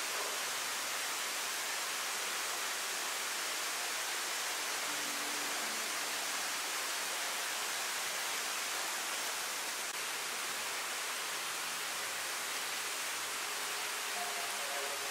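Small garden waterfall spilling over rocks into a pond: steady splashing and trickling, an even rushing hiss.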